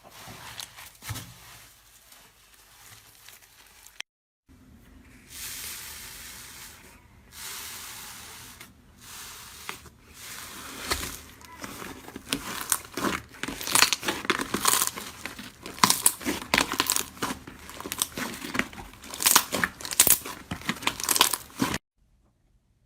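Crisp tearing and crackling of a crunchy ASMR material being squeezed and pulled apart by hand, thickening into a fast run of sharp crunches partway through and cutting off suddenly near the end. A brief silence about four seconds in marks a cut between clips.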